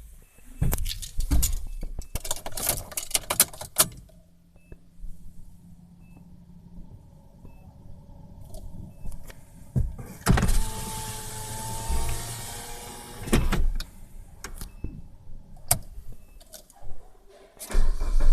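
Suzuki Splash's faint, short high-pitched electronic beeps, repeating about once a second: an unexplained warning beep that began after the battery went flat and the car was jump-started. Around them come clicks and knocks, a motor whirring for a few seconds in the middle, and a loud low rumble that starts near the end.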